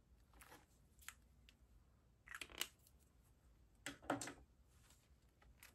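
Pages of a ring-binder planner in plastic sleeves being handled and turned, giving short rustles and crinkles, two louder ones about two and four seconds in, over near silence.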